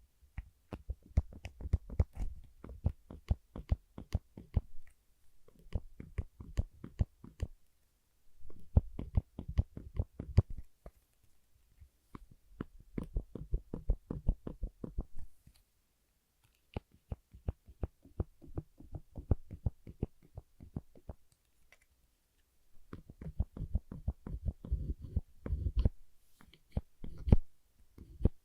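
Black spring clip being pressed and released over and over, making rapid runs of sharp clicks with low thumps in about six bursts separated by short pauses.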